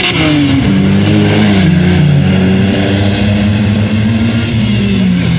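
Car engine revving hard under acceleration. Its pitch climbs and drops, then falls steadily away near the end.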